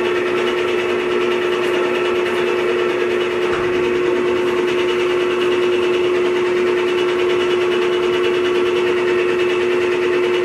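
Clausing Metosa 24-by-120-inch engine lathe running under power, a steady mechanical hum with one strong, unchanging tone from the spindle drive and headstock gearing.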